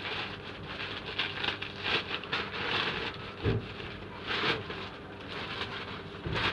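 Plastic parcel packaging crinkling and rustling as it is handled and unwrapped, with two soft thumps, one about halfway through and one near the end.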